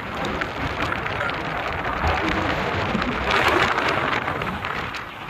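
Steady rushing of wind and tyre noise from a moving car with its window open, crackly and swelling a little midway, then easing near the end.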